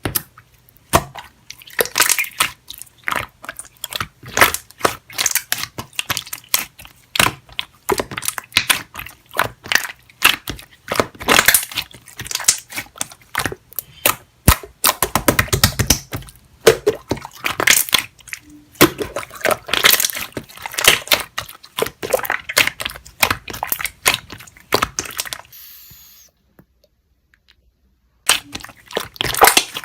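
Slime being squished and pressed by hand, making a dense, irregular run of sticky clicks and pops. The pops stop for about two seconds near the end, then start again.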